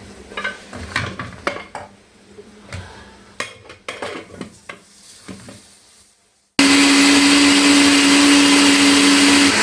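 A series of sharp clicks and knocks. About six and a half seconds in, a Moulinex electric blender switches on abruptly and runs at a steady high speed, grinding the cooked onion into a purée.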